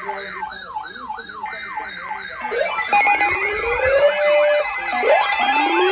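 Electronic sirens layered together: a fast yelp sweeping up and down about three times a second, with steady high tones over it. About three seconds in, a slower wail joins that rises and holds, then rises again near the end.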